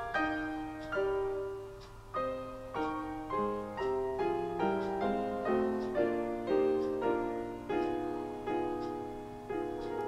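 Background piano music: a slow melody of struck notes and chords, each note fading away after it is played.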